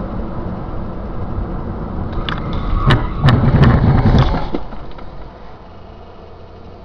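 Collision of a car with the rear of a Lada saloon: two sharp knocks and a loud crunching clatter of body panels for about a second and a half, after which the steady road and engine noise of the moving car falls away to a low hum as it stops.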